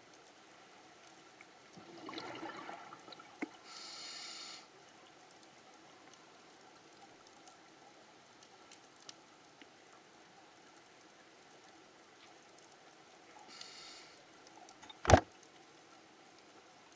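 Underwater scuba breathing through a regulator: a rush of exhaled bubbles about two seconds in, and short hisses from the regulator around four seconds and again near fourteen seconds. About fifteen seconds in comes one sharp knock, the loudest sound, as a giant manta ray's body strikes the camera.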